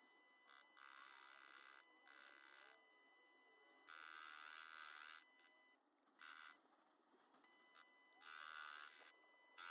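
Carbide insert turning steel rebar on a Proxxon PD 250 mini lathe: a high metallic hiss of the cut coming in separate bursts of about a second each, several times over, with a faint steady whine underneath.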